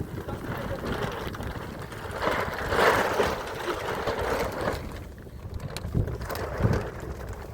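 Wind rumbling on the microphone, with a louder rushing swell about three seconds in.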